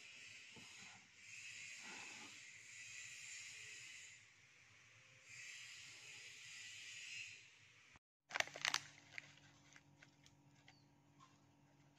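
A faint steady hiss with slow swells. After a sudden cut about 8 seconds in, a brief burst of loud crinkly crackling, then soft scattered ticks over a low hum as potting mix is tipped from a small plastic bag into a fibre seedling pot.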